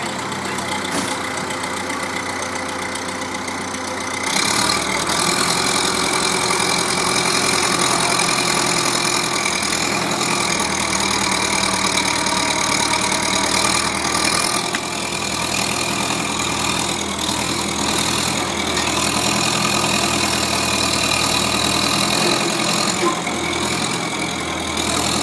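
Engine of an old tractor, standing abandoned for twenty years and just started, idling steadily. Its sound gets louder about four seconds in and then holds steady.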